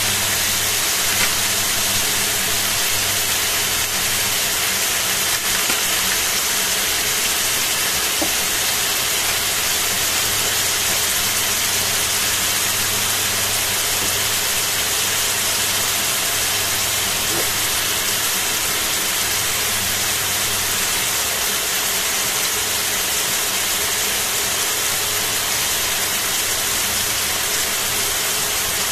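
Sliced pork sizzling steadily in a stainless steel frying pan as it starts to fry, with a steady low hum underneath.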